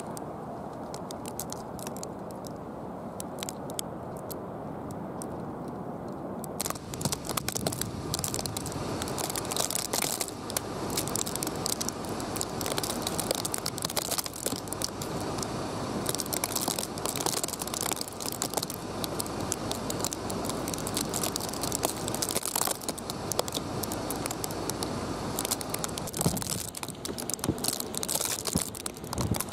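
Storm wind rushing over the camcorder's microphone, with many small crackles and ticks. About six and a half seconds in, the rush turns brighter and louder and the crackling thickens.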